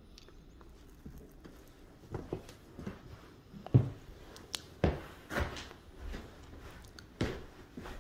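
Footsteps on a hardwood floor: a run of uneven thuds that begins about two seconds in.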